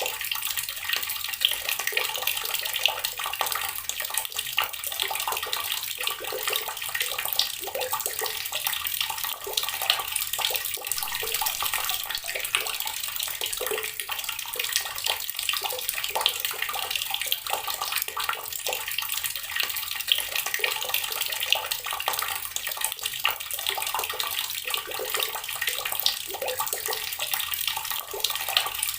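Water tap running steadily, its stream splashing continuously into water below.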